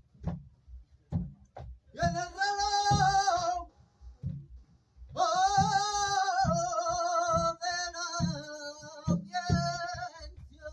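Male flamenco singer singing a martinete in ornamented, wavering phrases: a short one about two seconds in, then a longer one from about five seconds in. Low djembe strokes run underneath.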